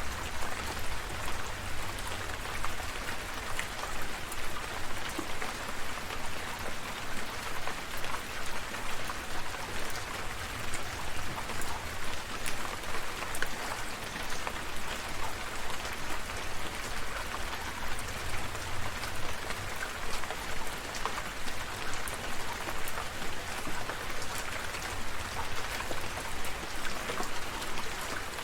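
Steady rain falling, with many individual drops ticking through an even hiss and a low rumble underneath.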